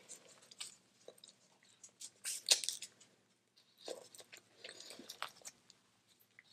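Close-up eating of boiled crawfish: chewing and crunching of shells in short crackly bursts, loudest about two and a half seconds in.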